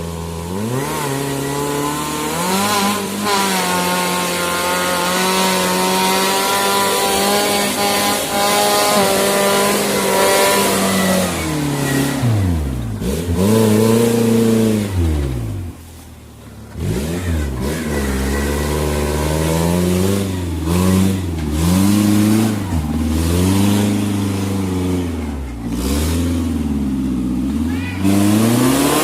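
Suzuki Jimny 4x4 engine revving under load, held at a steady high pitch for about ten seconds and then falling and rising again and again as the throttle is worked. It drops away briefly about two-thirds of the way through.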